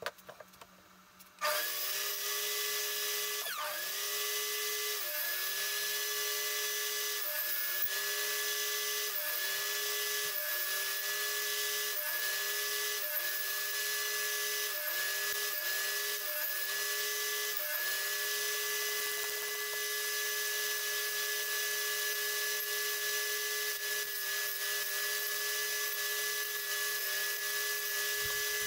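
Metabo TS 254 table saw starting up and making a rapid series of short cuts in a thick softwood beam. Its motor whine dips in pitch briefly with each pass through the wood, about a dozen times, then runs free at full speed.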